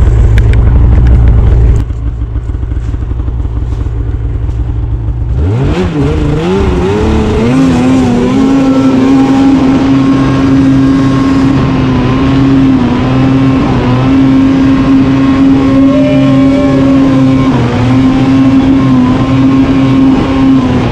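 Arctic Cat M8000 snowmobile's 800 two-stroke engine: revs climb with a wavering rise about five seconds in, then hold at a steady high pitch, dipping slightly now and then, as the throttle is kept open to keep the sled skimming across open water.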